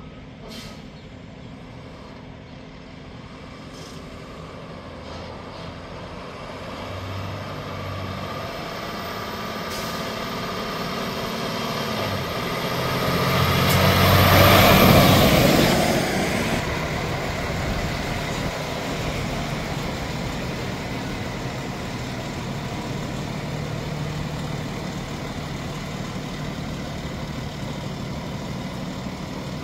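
Cummins ISL9 inline-six diesel of a Freightliner 108SD truck running, growing louder to a peak about halfway through with a short loud rush of noise and a high whine, then settling to a steady run.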